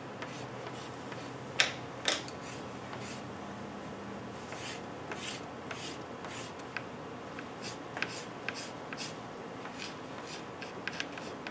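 Pastel stick scratching across a toned drawing board in short, irregular strokes, two louder ones about a second and a half and two seconds in.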